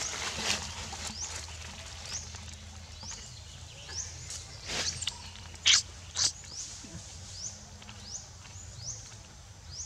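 A baby macaque biting and chewing a piece of soft orange fruit, making short wet smacks and bites, the loudest two a little past the middle. A short, high, rising chirp repeats about once a second in the background.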